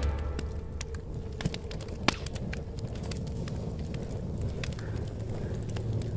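Scattered soft crackles and ticks over a steady low rumble, with two sharper ticks about a second and a half and two seconds in.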